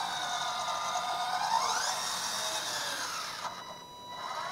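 Hydraulic pump of a 1/14 scale RC excavator whining as the upper structure slews around. The whine rises in pitch under load about one and a half seconds in, falls away and mostly stops about three and a half seconds in, then picks up briefly near the end.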